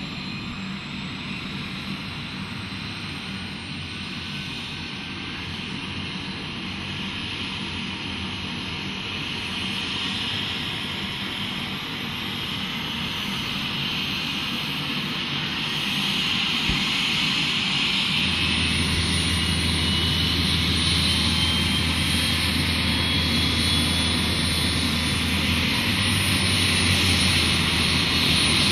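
Medical helicopter's turbine engine and main rotor spinning up on the ground before takeoff, growing steadily louder with a rising whine. A deep, steady rotor hum comes in about two-thirds of the way through.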